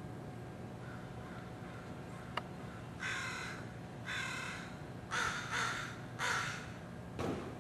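A crow cawing: about five harsh caws in a loose series over the second half, after a single sharp click.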